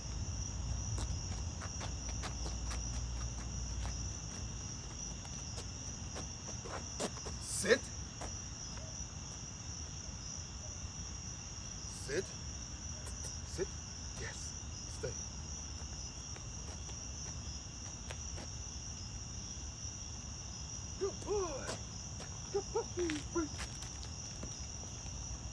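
Night insects, crickets among them, chirring in a steady high-pitched drone, with a few short soft taps, the loudest about eight seconds in.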